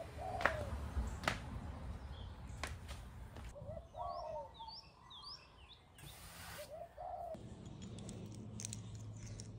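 Birds calling: a few short arched calls repeated several times, with a run of quick high chirps about four seconds in. Several sharp clicks and knocks fall among them.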